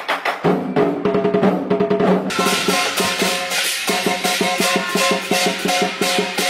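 Music with fast drumming and percussion over a melody. About two seconds in, a bright hissing layer comes in and the strokes become denser and more even.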